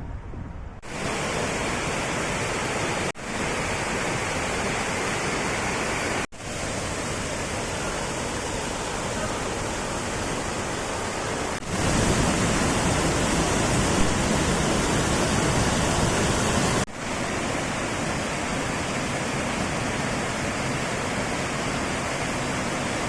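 Waterfall's steady rush of falling water, heard in several short clips joined by abrupt cuts, loudest in one stretch past the middle.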